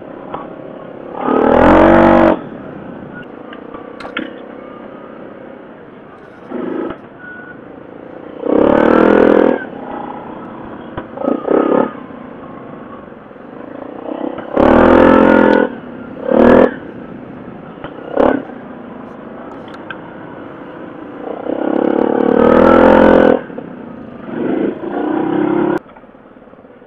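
A Yamaha 700 ATV's single-cylinder four-stroke engine running up a trail hill, with a steady lower drone between loud bursts of throttle, about five of them, each lasting a second or so.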